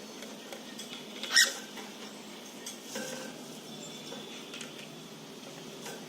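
Cockatiels moving about a nest box: faint scratching and clicking, with one short, loud, high sound about a second and a half in.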